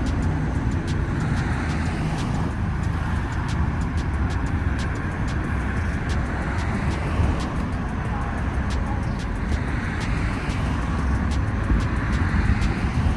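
Road traffic noise: a steady low rumble of vehicles that swells as traffic passes about two seconds in and again near the end, with faint, evenly spaced ticking running through it.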